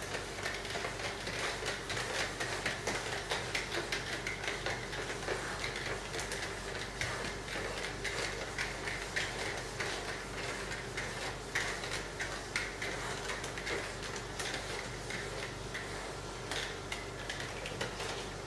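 A handheld whiteboard eraser rubbing across a whiteboard in quick back-and-forth strokes, a steady scratchy scrubbing that pulses with each stroke.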